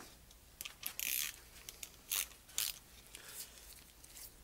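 A string of short scrapes and clicks from a carburetor and its small parts being handled on a bench, the longest scrape about a second in and two sharp clicks a little after two seconds.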